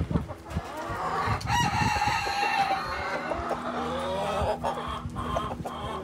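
Chickens clucking in the run, and a rooster crowing once about a second and a half in.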